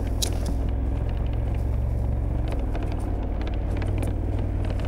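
KTM 1290 Super Adventure's V-twin engine running steadily under way, a low, even rumble.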